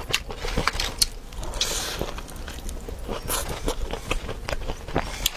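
Close-up mouth sounds of a person biting and chewing a thick-fleshed pickled chili pepper: irregular wet clicks and smacks, with a short hiss about a second and a half in.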